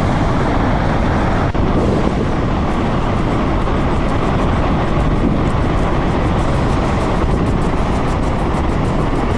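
Floodwater rushing in a fast torrent, a loud steady rush of water.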